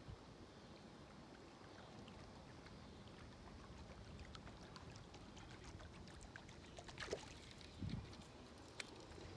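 Near silence: faint outdoor ambience by the water, with scattered light clicks from midway on and two soft thumps near the end.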